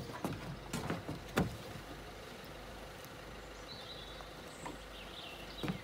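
Outboard motor idling in neutral, faint and steady. A few light knocks in the first second and a half as the bow rope is handled on the boat's fittings.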